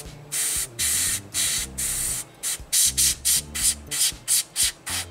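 Gravity-feed airbrush spraying paint in on-off bursts of hissing air as the trigger is pulsed to lay down small splotches. The bursts get shorter and quicker about two seconds in, roughly three a second.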